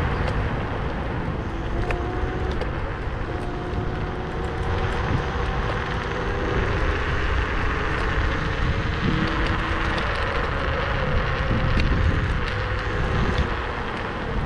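Kaabo Mantis electric scooter riding at speed: wind buffets the handlebar-mounted microphone over the rumble of the tyres on the pavement, with a faint whine that comes and goes.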